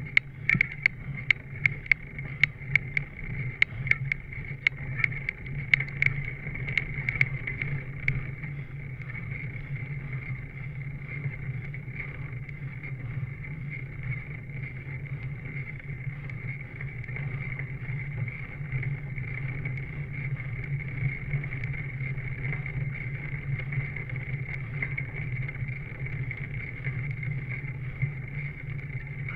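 Steady hum and hiss of a road bicycle riding on pavement, picked up by a handlebar-mounted camera. Sharp clicks come about twice a second for the first eight seconds or so, then stop.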